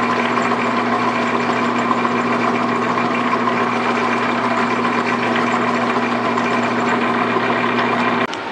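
Metal lathe running steadily while a slotted steel Acme worm used as a hob drives a brass worm-gear blank round and cuts its teeth: a steady machine hum with a few fixed tones under a rough cutting noise. It stops abruptly with a click near the end.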